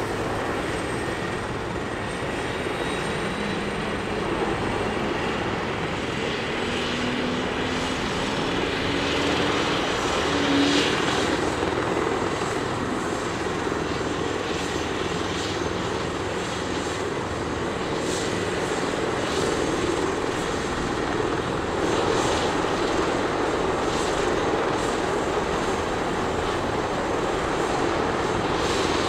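Airbus H145 helicopter's turbines and rotor running steadily, with a faint rising whine a few seconds in.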